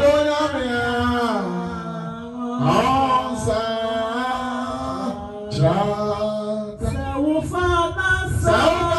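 A man singing a slow worship song, holding long notes and sliding between pitches, with short breaths between phrases.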